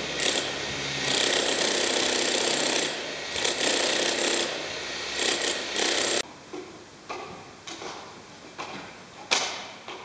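Electric jackhammer pounding into a concrete floor, a dense rapid hammering with a few brief pauses that cuts off suddenly about six seconds in. Then juggling clubs slap into the hands as they are caught, separate sharp knocks about twice a second, one much louder near the end.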